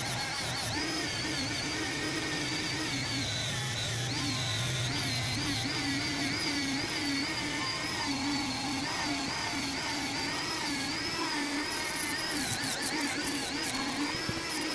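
Dremel rotary tool spinning a small sanding disc against the aluminium combustion chamber of a GY6 scooter cylinder head. It gives a steady high whine whose pitch wavers as the disc bites and eases.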